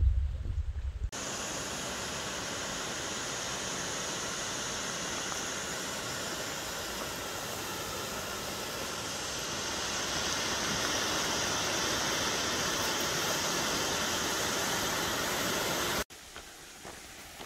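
A waterfall pouring into a pool: a steady rush of falling water that starts suddenly about a second in and cuts off near the end. A brief low rumble comes just before it.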